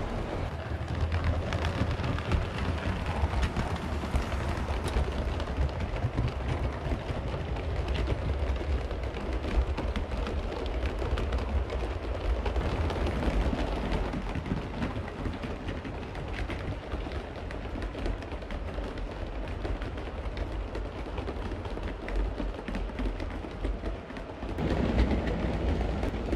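7mm-scale (O gauge) model trains running on the layout's track: a steady low rumble of wheels and motors, with many small rapid clicks of wheels on the rail.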